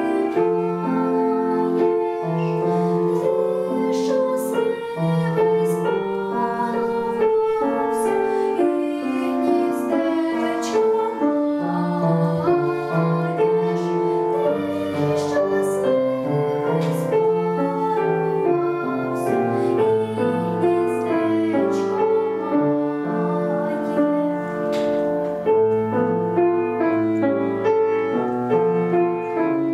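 A girl singing a Ukrainian folk song in a clear young voice, accompanied by a grand piano. Near the end the voice drops out and the piano carries on alone.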